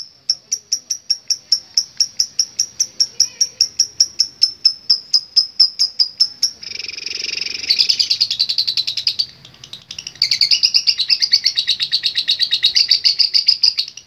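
Fischer's lovebird giving its long 'ngekek' chatter. A string of sharp high chirps, about four a second and quickening, runs about halfway in into a fast rattling trill. The trill breaks off briefly and then goes on again.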